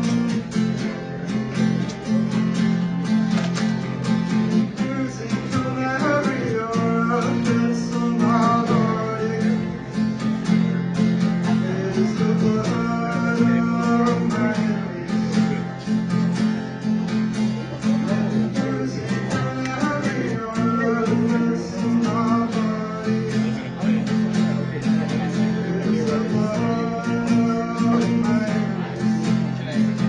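Acoustic guitar strummed steadily through a song, with a higher melody line rising and falling every few seconds.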